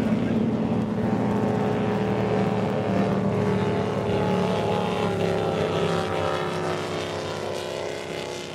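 High-powered water-ski racing boats running flat out as they pass close by. It is one steady engine drone that drifts slightly in pitch and fades over the last couple of seconds as the boats move away.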